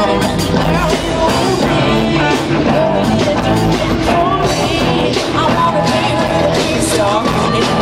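Live pop band performance: a female lead vocal sings bending, melismatic lines over keyboards and a full, loud band mix, picked up by a phone in the audience.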